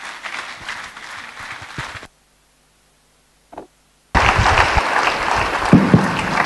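Audience applauding. It breaks off about two seconds in for roughly two seconds of silence, then comes back louder.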